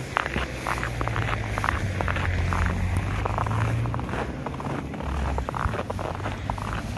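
Footsteps trudging and crunching through deep fresh snow, with irregular rustling close to the phone's microphone, over a low steady car engine hum.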